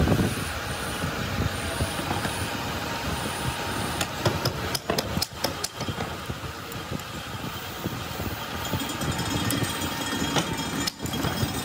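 Steady background noise with a cluster of sharp metal clicks and clinks about five seconds in, and another near the end, from a cast-iron donkey water pump being assembled by hand with a wrench.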